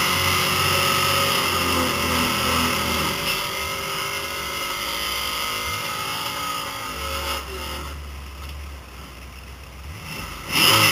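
1969 Mercury Cougar's V8 idling, heard from the driver's seat, its pitch wavering unevenly; from about seven seconds in it settles to a quieter low drone. Right at the end a short, loud burst of engine noise rises and falls.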